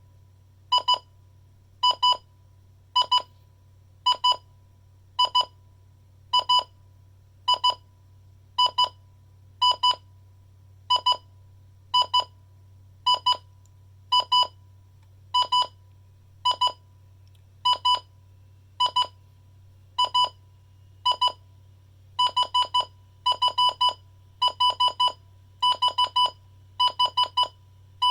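Midland WR-100 weather alert radio sounding its alert alarm: a loud, high electronic beep about once a second. Near the end the beeps come faster, in quick groups of two or three.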